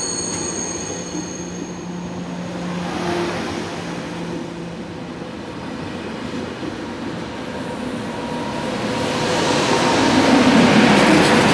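TGV Duplex double-deck high-speed train rolling past along a station platform, a steady rumble of wheels on rail. It grows louder near the end as the power car goes by.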